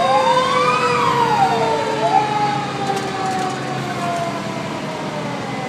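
Fire truck sirens heard from inside the cab: a wail sweeping up and down that stops about two seconds in, while a second, steadier siren tone slowly falls in pitch as it winds down.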